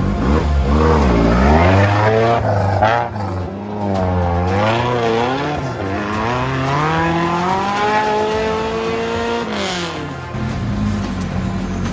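Off-road 4x4 engine revving hard in repeated rises and falls, then a long steady climb in revs that drops off near the end.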